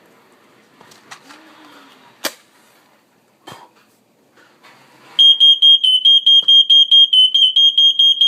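A few faint knocks and one sharp click, then about five seconds in a smoke alarm starts sounding: a loud, high-pitched beep repeating rapidly and evenly, about three to four a second, with no pauses between groups.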